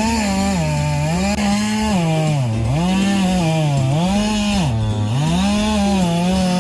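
Chainsaw sound revving up and down over and over, roughly once a second, then holding at a steady pitch near the end.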